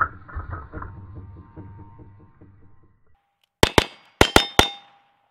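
Background music for about the first three seconds, then five quick shots from a single-action revolver within about a second, followed by a short metallic ring.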